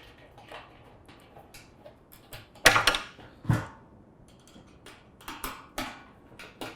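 Metal clicks and clinks as a small bolt and bracket are fitted to a sheet-metal barbecue grease tray, with a louder clatter about two and a half seconds in and lighter knocks after.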